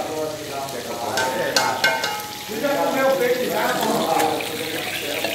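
Fish frying in a pan of oil on a gas stove, and a utensil stirring and knocking inside an aluminium pot, with a few sharp clicks about a second or two in. People are talking indistinctly in the background.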